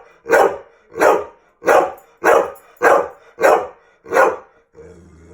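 A pet dog barking at a steady pace, seven barks about two-thirds of a second apart, then breaking into a low steady growl near the end. It is demand barking for food, here a carrot.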